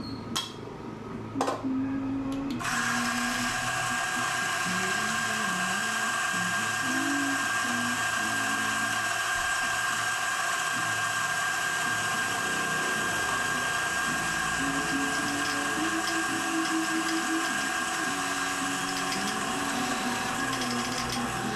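DF64 flat-burr coffee grinder switching on about two and a half seconds in, after a couple of short clicks, and running steadily as it grinds a single dose of beans into the portafilter: an even grinding noise with a steady motor whine.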